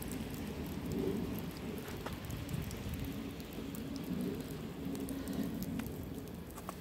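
Wet snow falling and pattering, with scattered light ticks over a low, steady noise.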